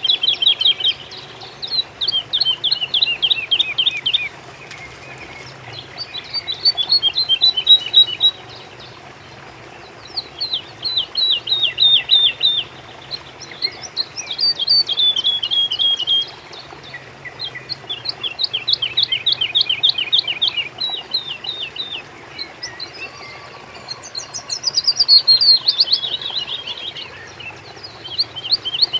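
A songbird singing a series of rapid trilled phrases, each a quick run of falling notes lasting two to three seconds and repeated about every four seconds.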